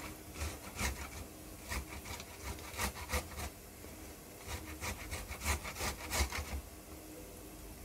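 A halved tomato grated on a stainless-steel box grater: a run of short, irregular scraping strokes, a few a second, that stop about a second before the end.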